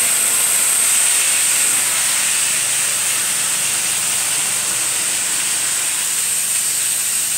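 Rotovac Bonzer carpet-cleaning wand on vacuum extraction, pulling air and water out of wet carpet: a loud, steady hiss of suction through the wand head, with a faint low hum underneath.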